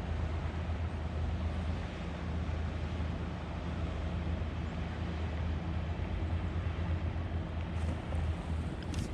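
Steady low engine drone over an even wash of noise, unchanging throughout.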